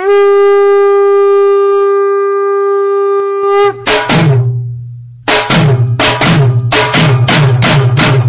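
Dramatic soundtrack: one long, steady horn blast held for about three and a half seconds. A low drone and heavy drum hits follow, settling into a fast, even beat of about three strikes a second.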